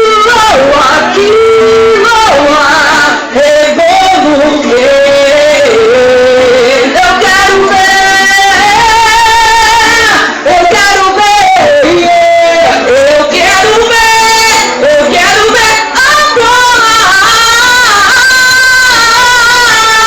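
Women singing a wordless melody, with long held notes, vibrato and sliding runs.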